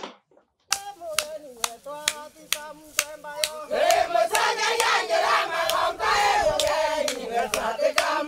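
A group of voices singing together over steady hand-clapping, about two claps a second, starting just under a second in; the singing grows fuller about four seconds in.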